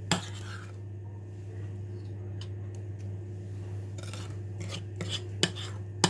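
Spoon scraping and tapping on the bowl as cake batter is spooned into cupcake cases: a scatter of short scrapes and clicks, the sharpest near the start and near the end, over a steady low hum.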